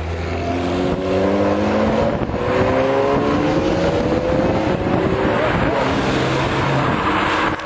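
Sports car engines accelerating hard one after another: a Ferrari Testarossa, then Porsche 911s. The engine notes climb in pitch as each car pulls away.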